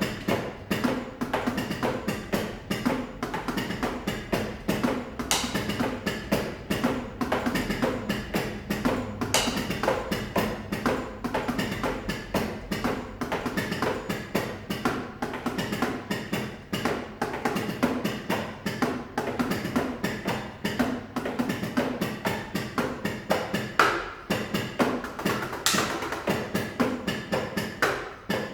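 Drumsticks playing a Roland electronic drum kit with its sound module switched off: only the dull taps and thuds of sticks on the rubber and mesh pads, several strikes a second in continuous playing.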